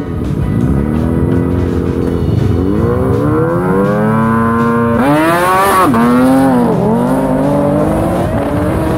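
Motorcycle engines revving hard and accelerating away, the pitch climbing and dropping again with each gear change; the highest, loudest climb comes about five to six seconds in, then falls sharply.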